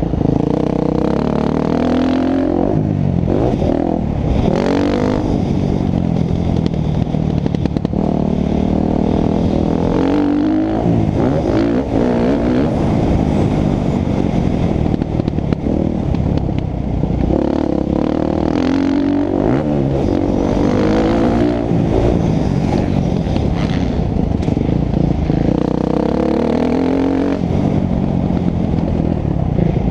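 Motocross bike engine revving hard and backing off again and again, its pitch climbing and dropping with each burst of throttle and gear change.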